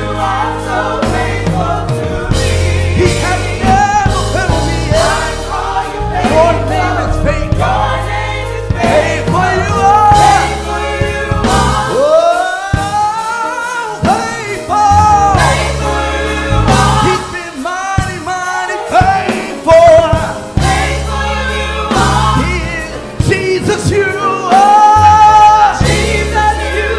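Gospel choir singing over an instrumental accompaniment with a steady bass; the low accompaniment drops away briefly around the middle while the voices carry on.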